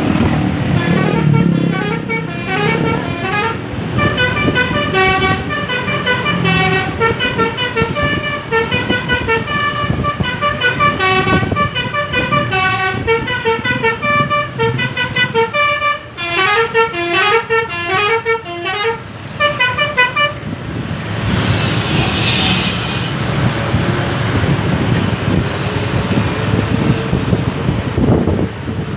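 Indonesian bus basuri telolet air horn playing a rapid melody of short, stepping notes for about twenty seconds, then breaking off. A short hiss follows, over steady engine and traffic noise. The bus has a leaking air hose, which keeps the horn from playing at full strength.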